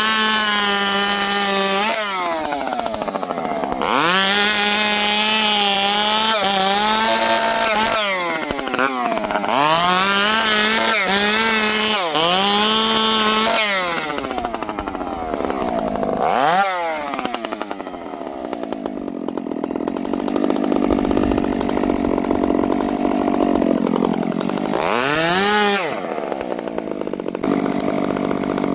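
Dolmar two-stroke chainsaw revved up and let back down several times, its pitch climbing and falling with each burst of throttle, with a steadier running stretch in the middle; it is being tested after its low-speed jet was richened to cure it warbling down to idle, a sign of a lean low jet.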